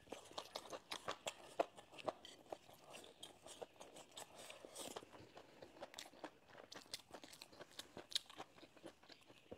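A person chewing a mouthful of crisp stir-fried velvet antler mushrooms and cured pork: quiet, irregular crunching with many small crackles.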